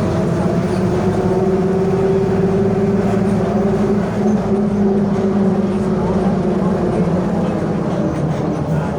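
Mercedes-Benz OF 1721 bus under way, heard from inside: the differential growling, a steady droning tone that sags slightly in pitch after the middle, over the running OM924LA four-cylinder diesel and road noise.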